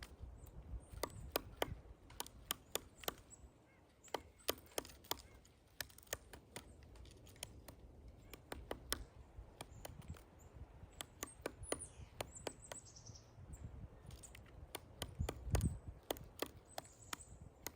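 Pileated woodpecker chiselling into a pine trunk: sharp wooden knocks in quick irregular clusters with short pauses, one heavier knock about three quarters of the way through.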